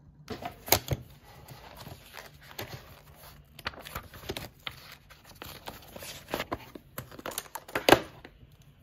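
Paper pages of a spiral-bound notepad being flipped and rustled, with irregular sharp rustles and clicks, loudest about a second in and near the end.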